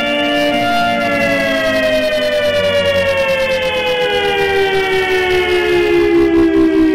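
A siren's wail: a loud, steady tone that begins about a second in to fall slowly in pitch.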